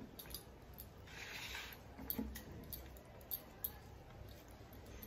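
Quiet sounds of eating rice and fish curry by hand: fingers squishing and mixing the rice, with soft scattered clicks and two sharper clicks close together about three and a half seconds in.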